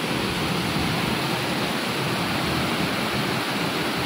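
Steady rushing of river water flowing hard past concrete pillars, an even, unbroken roar of water.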